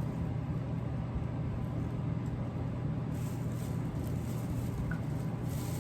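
A steady low hum with faint background noise, no clear events.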